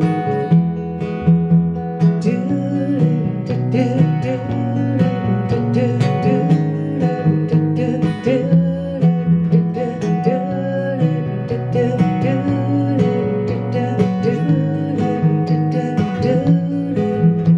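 Live folk-style song: steel-string acoustic guitar strummed in a steady rhythm, with electric bass guitar playing underneath. From about two seconds in, a wavering melody line runs above the guitars.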